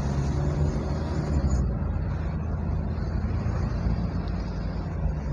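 Steady low rumble of a car's engine and tyres while it is driving along a paved road in traffic.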